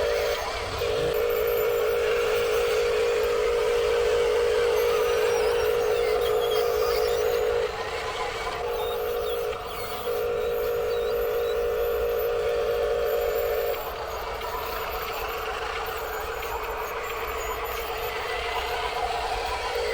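Small electric motor of a radio-controlled construction model whining at one steady pitch. It runs in stretches, for about seven seconds, then briefly, then for nearly four seconds, with short stops between and a stop about two-thirds of the way through.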